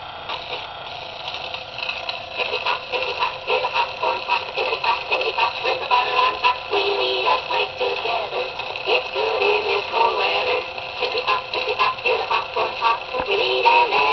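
Marx Lumar wind-up toy phonograph playing a children's record through its acoustic soundbox: singing with music, thin and without bass. It starts faintly as the needle is set down and grows louder about two seconds in.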